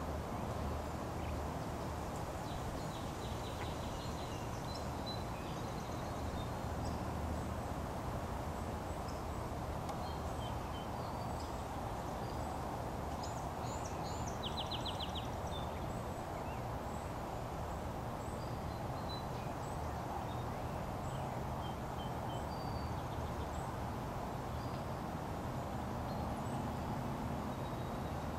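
Steady outdoor background noise with faint, scattered high bird chirps and a short rapid trill about halfway through.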